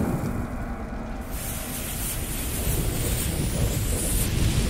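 Intro sound effect of a burning fuse and rushing fire: a steady hiss that brightens about a second in and slowly grows, leading up to an explosion.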